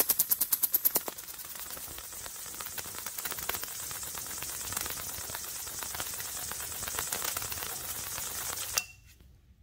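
10,000-volt DC plasma discharge arcing between concentric copper rings, pushed around the ring gap by a ring magnet's field. It snaps rapidly and loudly, about ten times a second, for the first second, then settles into a steady crackling sizzle that cuts off suddenly near the end as the discharge goes out.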